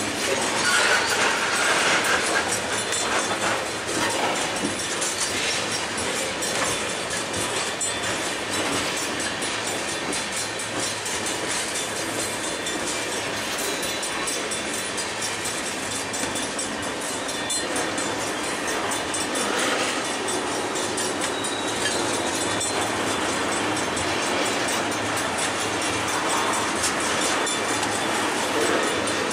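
Freight train of loaded tank cars rolling steadily past, its wheels rumbling and clattering over the rail joints. It is a little louder in the first few seconds.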